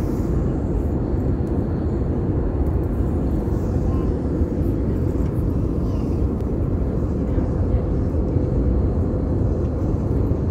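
Steady roar of airflow and engines inside the economy cabin of an Airbus A320neo in flight, heavy in the low range, with a faint steady hum.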